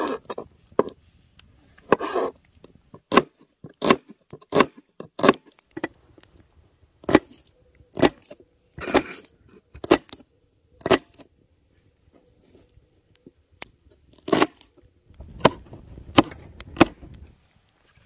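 Knife chopping vegetables on a board: sharp, irregular chops about one a second, pausing for a few seconds in the middle, with some rustling handling near the end.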